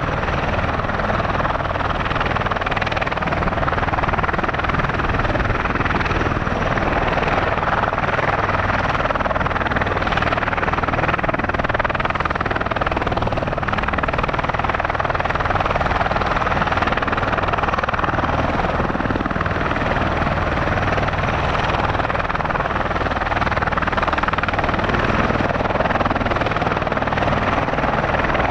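MV-22 Osprey tiltrotor running, its twin turboshaft engines and proprotors making a steady rotor throb with engine noise over it, holding an even level.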